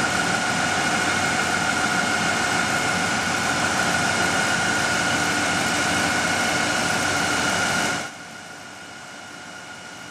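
Steady industrial machinery noise: a loud, even rush with a steady whine running through it. About eight seconds in it drops abruptly to a quieter, steady hum.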